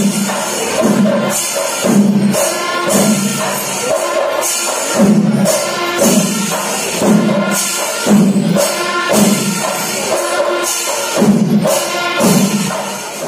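Percussion music with a steady drum beat, about one and a half beats a second, and bright clashing cymbals.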